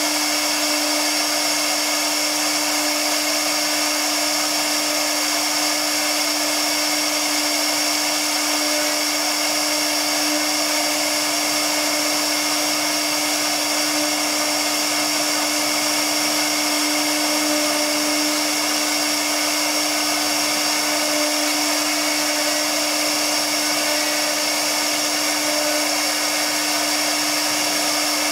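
CNC router spindle running at a steady speed with a constant whine, its engraving bit cutting a relief carving into MDF board with a continuous hiss of cutting.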